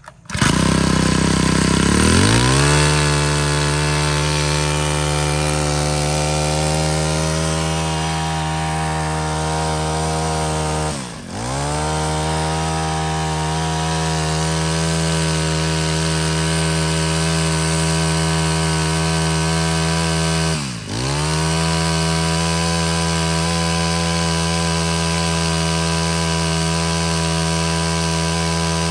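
Honda GX25 25cc four-stroke brush cutter engine starting up and running steadily at high speed. Twice, about ten seconds apart, its speed drops briefly and picks straight back up.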